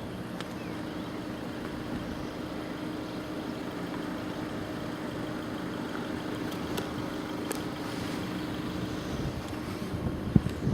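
Road vehicles idling with a steady low engine hum, against general outdoor traffic noise.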